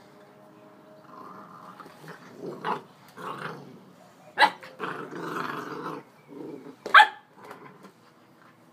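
A puppy growling in several short, rough bursts, broken by two sharp, loud yaps about four and seven seconds in.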